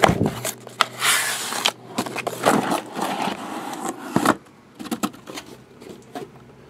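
Hands handling sealed cardboard boxes of basketball cards: scattered knocks and clicks with a brief rustle of plastic or packaging about a second in, then quieter handling with small clicks.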